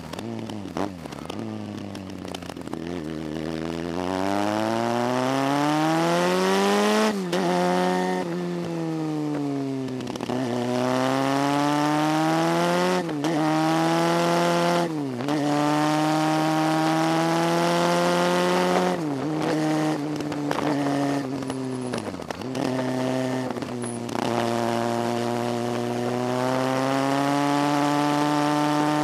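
Motorcycle engine pulling up a winding mountain road: the revs climb steadily, then drop sharply, about ten times over, as the bike accelerates out of bends and slows into the next. A steady hiss runs underneath.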